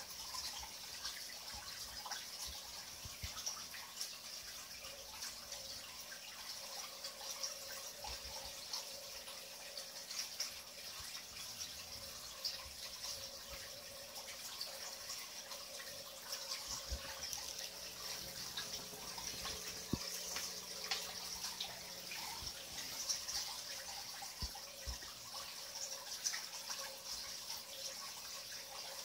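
Fish-tank water trickling and splashing steadily, with many small drips and ticks throughout, as the aquarium's water circulates.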